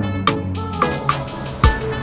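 Background music with a steady drum beat over bass.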